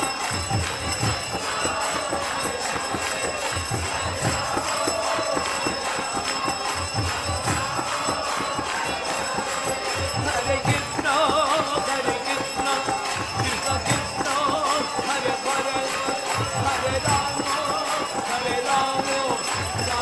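Kirtan music: a man chanting over a harmonium, with two-headed mridanga drums beating a steady rhythm and karatalas (small hand cymbals) jingling throughout.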